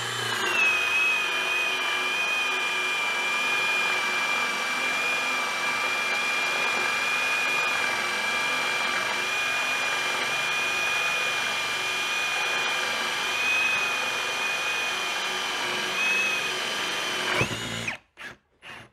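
AEG BS18C2BL 18 V cordless drill-driver on second speed, boring a 30 mm Forstner bit into a wooden board. The motor runs with a steady whine under load and never stalls, then stops about seventeen and a half seconds in. A few short clicks follow.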